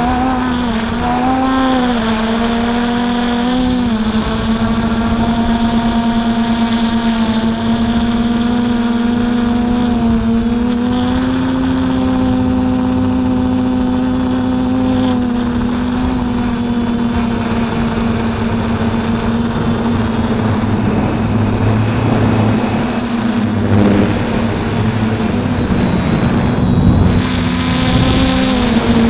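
DJI F450 Flamewheel quadcopter's motors and propellers humming as heard from the onboard camera, the pitch bending up and down with throttle changes, over a rush of wind noise.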